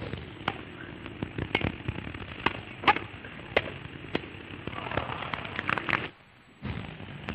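Hiss of an old newsreel film soundtrack, with irregular sharp clicks and pops. The sound drops out briefly about six seconds in.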